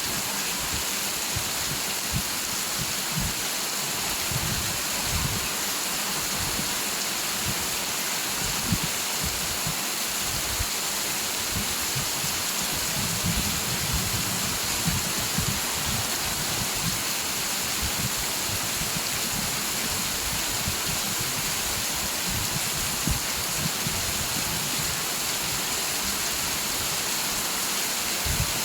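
Steady rain falling, a dense even hiss with scattered heavier drops on a surface.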